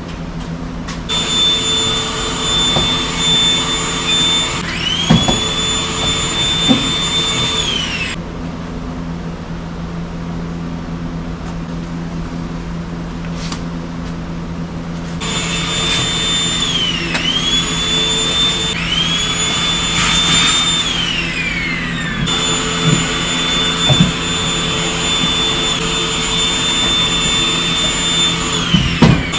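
Shop vacuum running in three spells with pauses between, its high whine dropping and climbing back in pitch as the nozzle is choked and freed, with a few knocks of the nozzle against the floor. A steady low hum continues beneath it.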